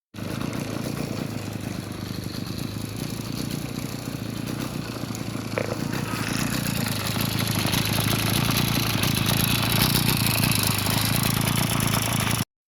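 Kawasaki TJ45E brush cutter's two-stroke engine running with a nylon line trimmer head spinning, growing louder and brighter from about six seconds in as the throttle is opened.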